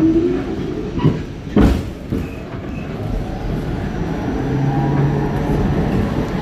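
R46 subway train pulling out of a station: a steady low rumble of wheels and motors, with one sharp knock about a second and a half in.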